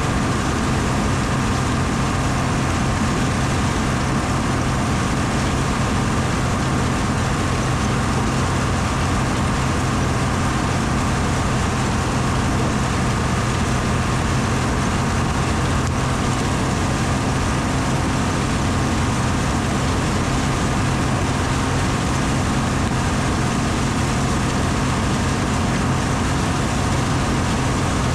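Combine harvester's diesel engine running steadily while it warms up, a constant low hum with a steady high whine over it.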